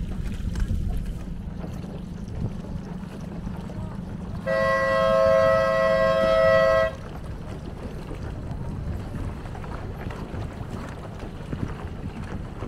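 Race committee boat's horn giving one long steady blast of about two and a half seconds near the middle, a sailing-race start-sequence signal. Wind rumbles on the microphone throughout.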